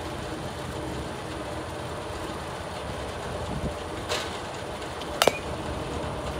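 Steady outdoor background noise, broken about four seconds in by a soft whoosh and about five seconds in by a sharp double crack with a short ring: a softball struck by a composite bat in a batting cage.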